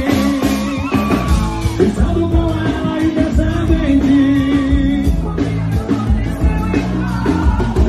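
Live forró band playing with a steady drum and bass beat while a man and a woman sing together into microphones.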